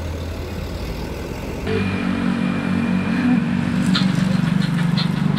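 Motor vehicle engine running with a steady low hum; about two seconds in the sound cuts to a louder engine hum with a few light clicks.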